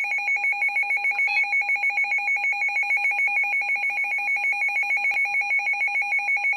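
Weather radio alert tone: a rapid electronic trilling alarm, pulsing evenly at about eight beats a second, sounded to signal a severe weather bulletin.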